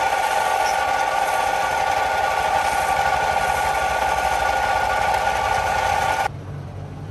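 Wood lathe running while a hand-held chisel cuts into the spinning wooden workpiece: a steady whine over a dense hiss of cutting. It cuts off suddenly about six seconds in, leaving a much quieter background.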